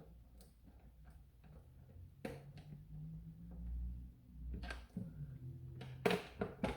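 Scattered light clicks and knocks of hard plastic blaster parts being handled and fitted together, with a cluster of sharper clicks near the end, over a low steady hum.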